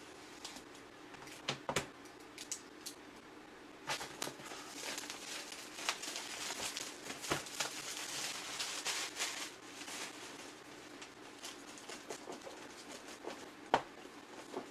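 Plastic packaging and a cardboard product box being opened and handled: a few sharp clicks at first, then crinkling and rustling of a plastic bag from about four seconds in for several seconds, and a single sharp tap near the end.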